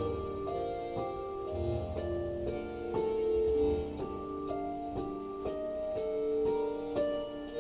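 Looping instrumental beat: a keyboard melody of held, piano-like notes over a steady hi-hat-style tick about twice a second, with deep bass notes coming in briefly around the two-second mark.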